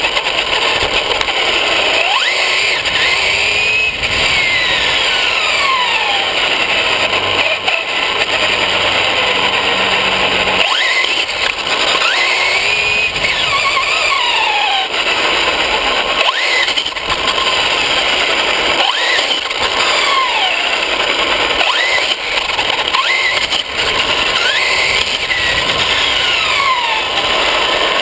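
Traxxas Slash VXL RC truck's brushless electric motor and drivetrain whining, the pitch sweeping up and down again and again as the truck accelerates and slows. Under it runs a steady rush of tyres on a gravel-strewn road, heard from on board the truck.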